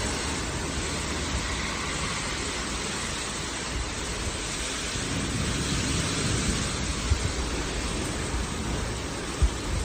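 Storm wind and heavy rain from a severe thunderstorm rushing steadily, with wind buffeting the microphone in uneven low rumbles. A couple of brief sharp thumps stand out, one about seven seconds in and a louder one near the end.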